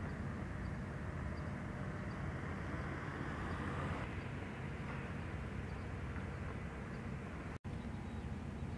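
Steady outdoor background noise, a low rumble with a hiss above it, broken by a split-second dropout near the end.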